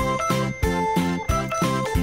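Happy background music with a steady beat and a melody of short, bright notes.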